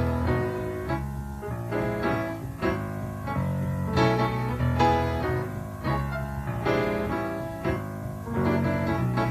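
Instrumental jazz-fusion jam: electric bass and keyboard playing chords together, with a strong low end and accented chord hits about once a second.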